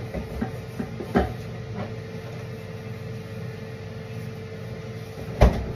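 Kitchen handling sounds: a few light clicks and a knock about a second in, then a louder knock near the end, over a steady hum.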